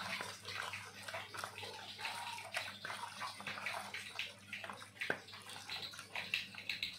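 Raw chicken pieces squelching and slapping wetly as a hand mixes them with a spice marinade in a stainless steel bowl, with irregular clicks of meat and fingers against the bowl, one sharper near the end.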